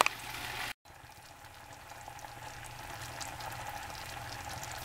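Chicken gravy simmering in a skillet on the stove: a soft, steady sizzle with small pops and crackles. The sound cuts out for a moment under a second in, then the sizzle carries on.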